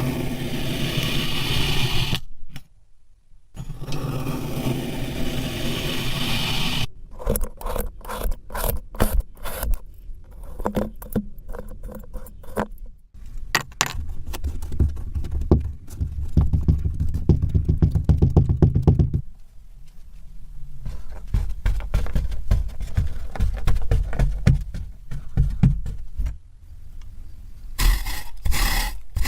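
Kinetic sand being worked close to the microphone: grainy scraping and crackling crunches that come in stretches, broken by a short pause about three seconds in.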